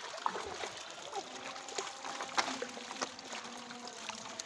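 Water splashing and trickling as a seine net full of live fish is gathered in by hand in shallow water, the fish flipping and slapping in the mesh. Short sharp splashes come one after another over a steady trickle.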